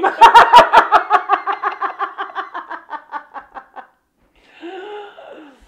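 People laughing: a loud run of quick ha-ha pulses, about four a second, that fade out over about four seconds, then a short falling vocal sound near the end.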